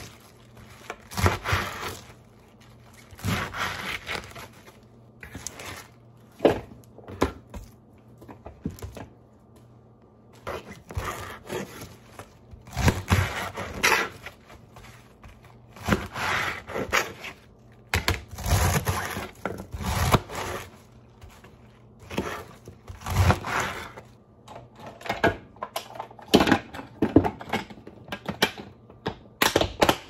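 Kitchen knife chopping crisp romaine lettuce on a cutting board: short bursts of crunching cuts every one to two seconds.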